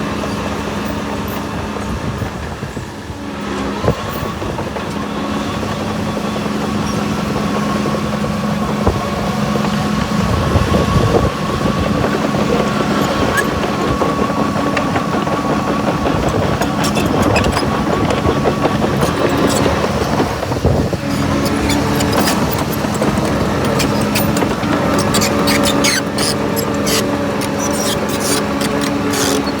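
Heavy diesel earthmoving machine, such as a bulldozer, running steadily under load, with a thin high whine through the middle and a run of sharp clicks and clanks over the last several seconds.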